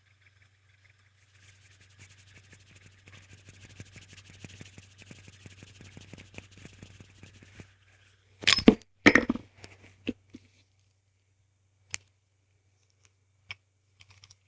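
Fidget spinner whirring with a fast fine ticking for several seconds, then a few loud sharp clacks and knocks as it is handled, followed by scattered single clicks. A steady low hum runs underneath.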